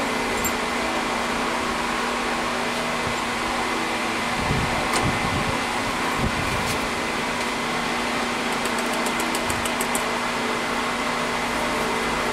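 Steady mechanical hum of a running motor, with a few faint knocks and a short run of rapid light ticks about two-thirds of the way through.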